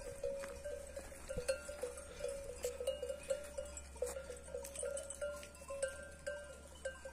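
Bells on grazing sheep clanking irregularly, several strikes a second, as the flock moves and feeds.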